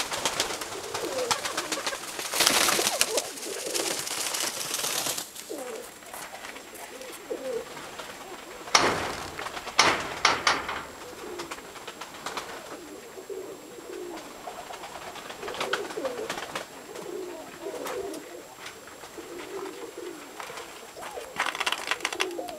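Domestic pigeons cooing over and over, broken by several louder rustling bursts, the longest about two seconds in.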